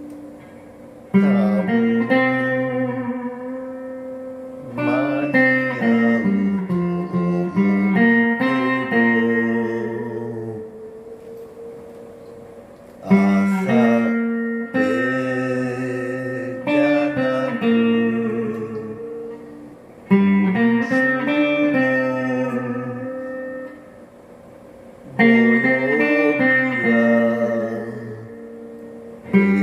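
Guitar music: chords struck every few seconds, each left to ring out and fade before the next.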